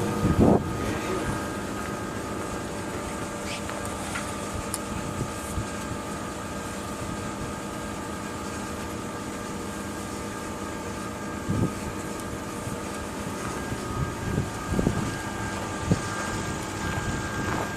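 Cessna 210 Silver Eagle's single turboprop engine running steadily: an even hum carrying several constant whining tones, with a few short louder blips near the end.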